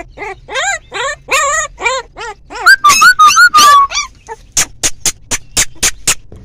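A litter of young pit bull puppies yelping and squealing in short, high-pitched barks, their first barking now that their ears and eyes have opened. The squeals are loudest about three seconds in. Near the end comes a quick run of about six sharp clicks.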